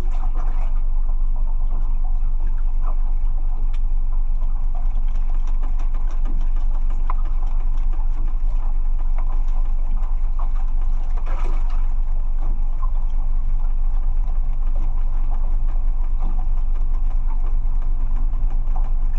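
Fishing boat's engine idling with a steady low drone.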